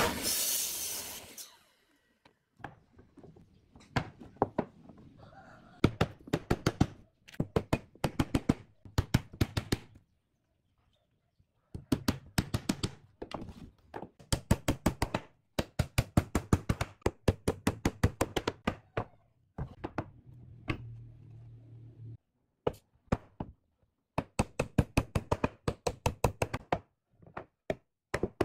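A miter saw cuts through a stack of pine boards for about the first second and a half. Then come repeated runs of quick hammer blows driving nails into the pine boards, several strikes a second, with short pauses between runs.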